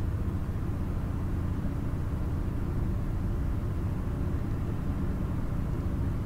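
Steady in-cab drive noise of a 1989 Chevrolet K1500 pickup with a swapped-in 6.6L Duramax turbodiesel V8, cruising at highway speed: a low, even rumble of engine and road.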